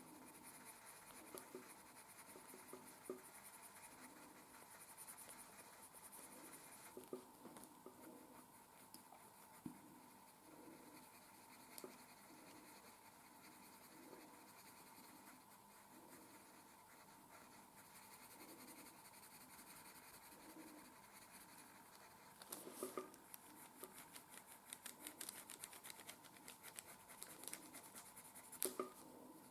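Coloured pencil shading on paper with light pressure in small circular strokes: faint, soft, regular scratching. About three-quarters of the way through, the strokes turn quicker and more scratchy.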